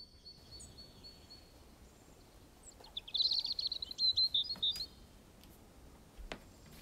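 A songbird singing: a few thin, high repeated notes, then about three seconds in a louder, rapid twittering run lasting about two seconds.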